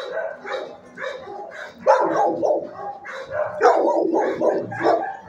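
Dogs in a shelter kennel block barking repeatedly, short barks of differing pitch overlapping one another, loudest about two seconds in and again around four seconds in.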